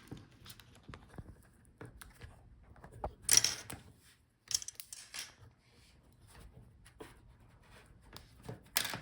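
Adhesive pull strip under a laptop's LCD panel being slid out: scattered short peeling and rustling sounds with small clicks, the loudest a little over three seconds in.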